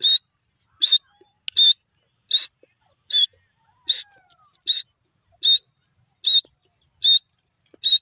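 Grey francolin calling: a series of eleven loud, short, high notes repeated evenly, about one every three-quarters of a second.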